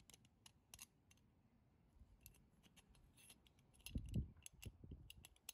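Near silence with faint scattered clicks and light handling knocks from fingers working a bolt and nylon lock nut on a small steel test jig. A few low bumps come about four seconds in.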